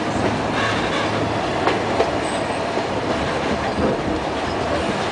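Passenger train running along the track, heard from on board: a steady rumble and rattle of the carriage with a few sharp clicks of the wheels over the rail joints in the first couple of seconds.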